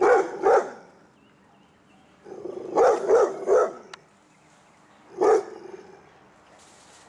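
Pit bull barking in short bursts: two barks at the start, three more about three seconds in, and a single bark a couple of seconds later.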